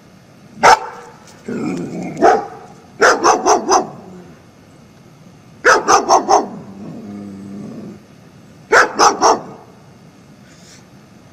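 German Shepherd barking: one sharp bark, then volleys of three or four quick barks, with low growling between them.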